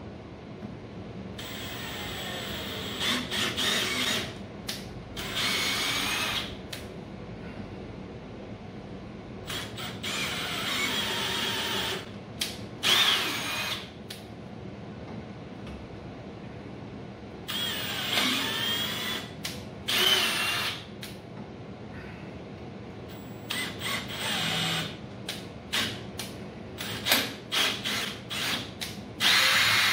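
Cordless drill power-tapping M4 threads. It runs in stop-start spurts of one to three seconds, its motor whine sliding up and down in pitch, then breaks into a string of short quick bursts near the end.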